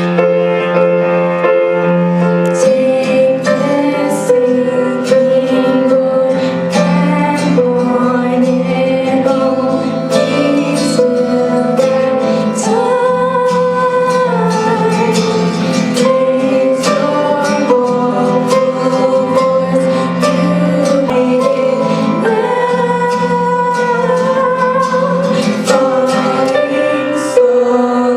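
Background music: a song with a melodic line over a beat, with drums coming in about two and a half seconds in.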